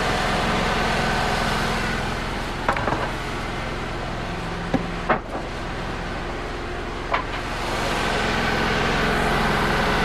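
Wood-Mizer LT35 sawmill's engine running steadily, a little louder at the start and again near the end, with a few short sharp knocks in between.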